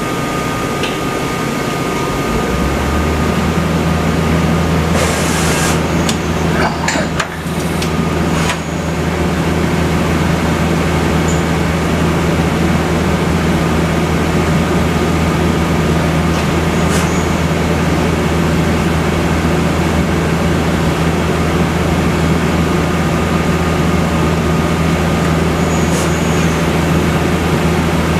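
Mazak Quick Turn Nexus 400 II CNC turning center running under power: a steady low machine hum steps up about three seconds in and holds. Between about five and nine seconds there is a brief hiss with a few clicks.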